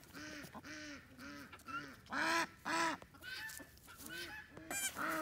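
Newborn goat kid bleating: a string of short cries, each rising then falling, about two a second, with two louder ones a little past two seconds in.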